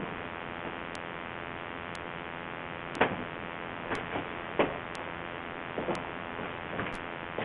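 Clock ticking once a second over a steady hiss, with a few brief, louder, irregular knocks or rustles in between, the loudest about three seconds in.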